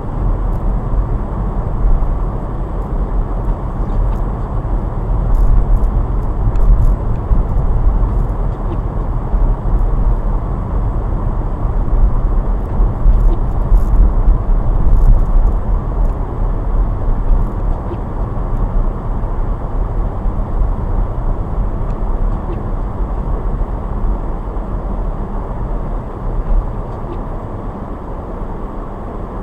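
Car driving on snowy roads: a steady, deep rumble of engine and tyre noise that swells and eases, growing quieter in the last third.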